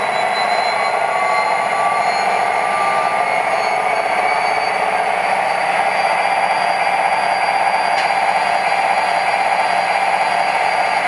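Proto-Sound 2.0 system of an MTH O-gauge CSX SD40-2 model diesel locomotive, playing a steady diesel engine idle through the model's small speaker. There is a single faint click about eight seconds in.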